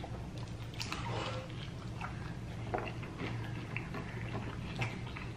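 Eating chicken wings: scattered short mouth clicks and smacks of chewing over a steady low hum.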